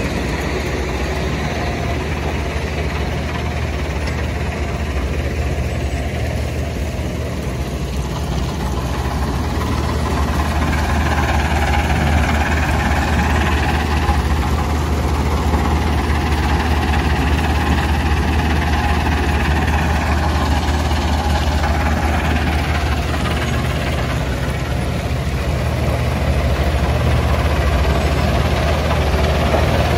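Powerscreen Warrior 600 tracked screening plant running steadily on its diesel engine, with a low hum, and gravel clattering off its conveyors onto stockpiles; it gets a little louder about a third of the way in.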